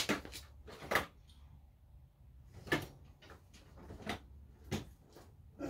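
A handful of separate light clicks and knocks, about five spread over several seconds, from small tools and parts being handled on a workbench.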